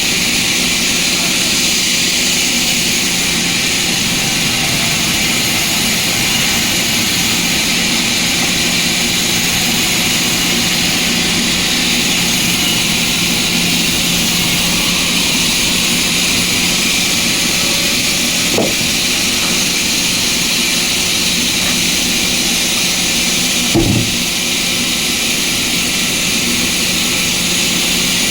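Sawmill machinery running steadily with a constant hum and hiss, broken twice by a short knock, the second louder.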